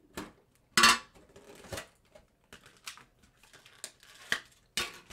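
A Pokémon card tin being opened and its clear rigid-plastic card tray handled: a loud plastic crackle about a second in, scattered clicks and rustles, and another sharp crackle near the end.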